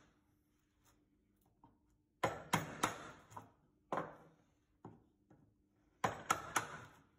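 Wooden mallet striking a mortise chisel cut into clamped timber: sharp knocks in quick groups, about three together two seconds in, a couple of single knocks after, and three more near the end.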